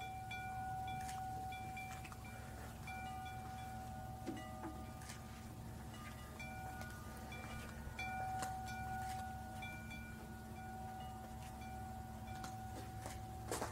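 Metal tube wind chimes ringing, several long tones of different pitch overlapping as the tubes are struck again and again, with fresh strikes right at the start and about eight seconds in. A steady low hum runs underneath.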